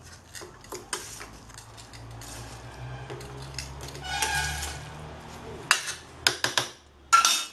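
A metal spoon stirring and scraping through thick cabbage-and-prawn curry in a stainless steel bowl, with light clicks against the metal. A few sharp clanks come near the end, the loudest about seven seconds in.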